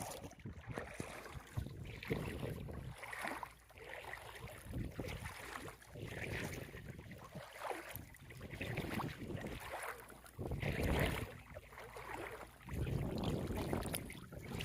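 Vehicle wading slowly through floodwater over a road, water washing and splashing around it in uneven surges over a low rumble.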